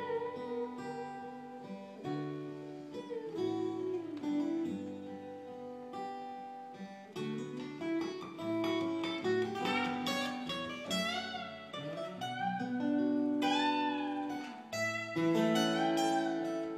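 Instrumental guitar break: acoustic guitar strumming chords under a lead guitar playing a melody with bent, sliding notes, which grow more frequent in the second half.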